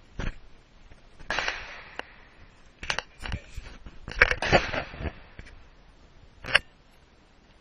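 A series of irregular clicks and knocks, some with a short rustling tail, the two sharpest about four and six and a half seconds in.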